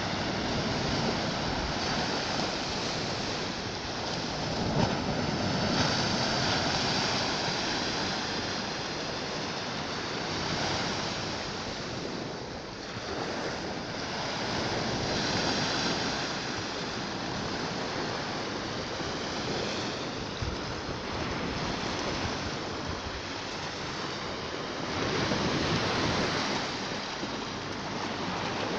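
Small Baltic Sea waves breaking and washing up a sandy shore: a continuous rushing of surf that swells and eases every few seconds as each wave comes in.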